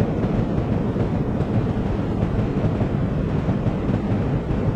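Steady low rumble of passenger train coaches running past on the track as the tail of the train goes by.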